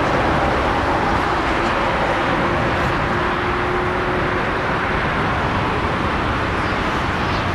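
Boeing 747-400F freighter on its landing rollout just after touchdown: steady, loud jet noise from its four turbofan engines, with a faint humming tone that fades out about halfway through.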